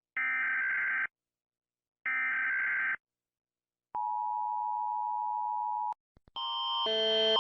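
Emergency Alert System data header: two harsh digital screeching bursts, each about a second long and a second apart, then a steady two-tone EAS attention signal for about two seconds. Near the end a louder, pulsing alarm tone starts and grows.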